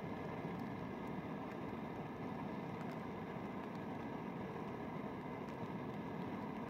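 Portable gas canister stove burning steadily under a small cooking pot: an even, unbroken rushing hiss.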